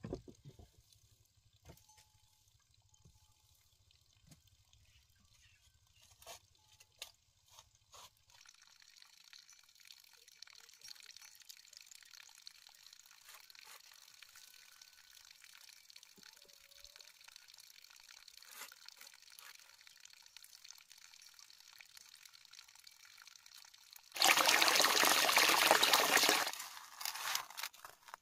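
Wet mud and water being worked at a rice seedling bed: small scattered squelches and clicks, then a loud splashing rush lasting about two seconds near the end, followed by a few separate scrapes of a hoe in wet mud.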